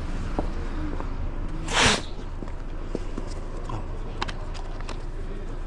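Plastic cycling water bottles being handled: a scatter of light clicks and taps from caps and bottles, with one short rushing hiss about two seconds in.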